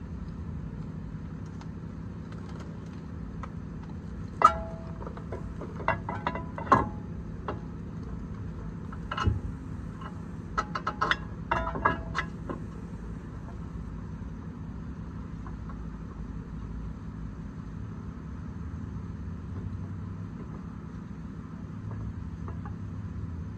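Sharp metallic clinks and clanks, some with a short ring, as a four-piston brake caliper and its hardware are handled and fitted onto the mounting bracket. They come in a scattered run between about 4 and 13 seconds in, over a steady low hum of a car engine idling.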